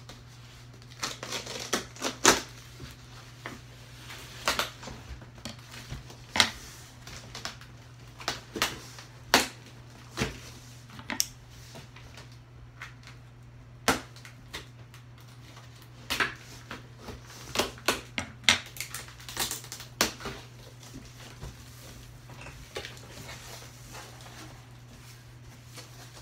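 Cardboard shipping box being cut open along its packing tape with scissors and its flaps and packing handled: irregular crackles, scrapes and knocks, busiest in the first twenty seconds and sparser near the end. A steady low hum runs underneath.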